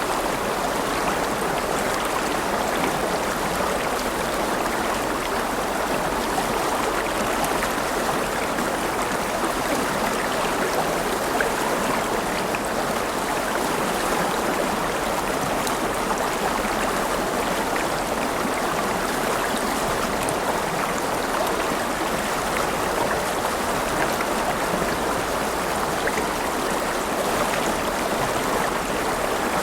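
River water flowing over stones, a steady rushing and babbling.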